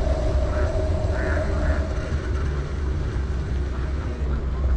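Wind buffeting the microphone of a camera riding on a moving bicycle, a steady low rumble, with a faint steady hum that fades out about two seconds in.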